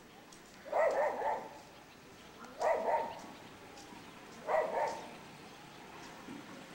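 A dog barking in three short bouts, about two seconds apart.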